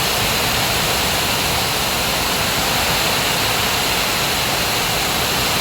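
Steady roar of heavy rain and strong storm wind.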